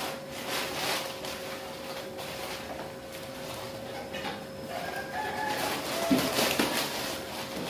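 Plastic bag rustling and crinkling as chili peppers are handled and bagged. A rooster crows in the background a little past halfway, over a steady faint hum.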